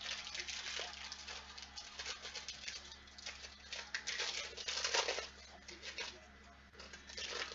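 Trading cards being handled and shuffled: a quick, irregular run of rustles and small clicks, busiest about halfway through.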